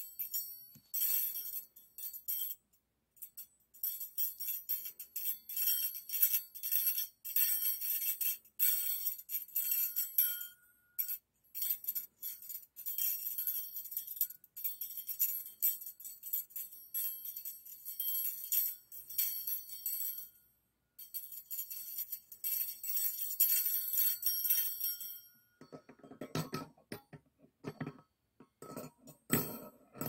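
Stainless steel hand-mixer beaters clinking and jingling together in rapid, bright metal-on-metal tinkles, with a few brief pauses. About four seconds before the end the sound turns to a duller, lower-pitched rattle.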